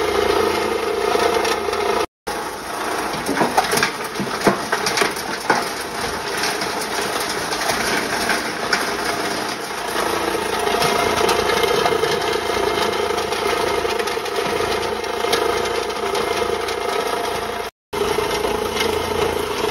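A 15 hp multi-material grinder running steadily while grinding cow horns through a 6 mm screen into a fine meal, with sharp crackling of horn pieces being broken, thickest a few seconds in. The sound cuts out briefly twice.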